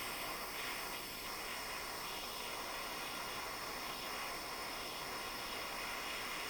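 Soldering torch flame hissing steadily, held on a brass ring joint to heat the metal until it sweats and fuses.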